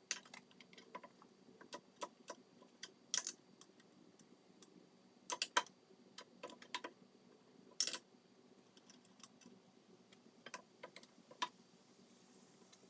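Scattered light metal clicks and knocks as a steel drill press spindle is worked up into its quill by hand, the louder knocks about three, five and a half and eight seconds in.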